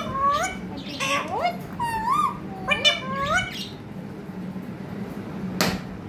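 Indian ringneck parakeet calling: short, pitched squawks that sweep up and swoop, coming about once a second, then a pause and a brief rush of noise near the end.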